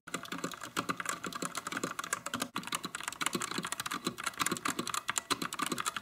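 Fast continuous typing on a Womier WK61 60% mechanical keyboard with linear red switches and pudding keycaps: a dense run of crisp key clicks, pretty quiet, with a momentary pause about two and a half seconds in.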